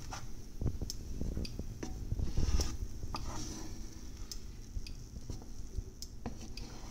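Slotted wooden spatula stirring and scraping scrambled eggs in a nonstick frying pan, with scattered sharp clicks and taps of the wood on the pan over a faint sizzle of the still-runny eggs.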